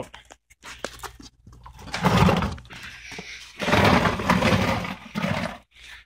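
Aluminum dirt can on rollers being pulled out from under an industrial vacuum and handled: a few light knocks, then two bursts of metal scraping and rattling, the second longer and loudest.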